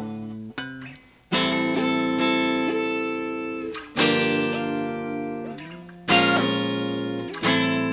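Guitar played through an Earthquaker Devices Pyramids flanger pedal on a preset with a very slow tap tempo. Several chords are struck and left to ring, and the pitch of the notes glides as they fade.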